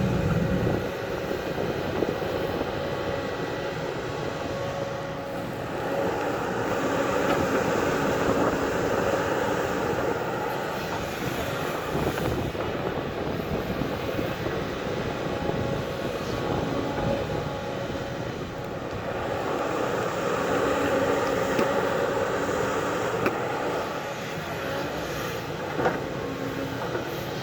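Diesel engine of a JCB earthmoving machine running under hydraulic load, its note rising and falling as it works, with a single sharp knock near the end.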